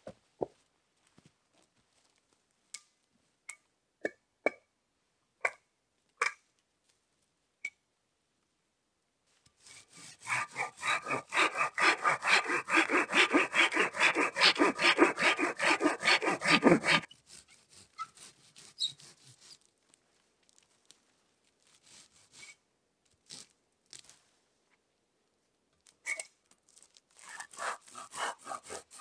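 Silky Bigboy folding hand saw cutting through the trunk of a small dead pine with quick back-and-forth strokes for about seven seconds, after a few scattered footsteps. A few seconds before the end the saw starts again on a branch.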